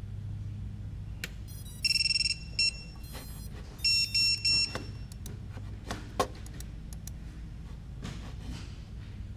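Electronic beeps from drone gear on the bench: one long beep about two seconds in, a short blip, then three quick beeps, with a sharp click a little later, over a low steady hum.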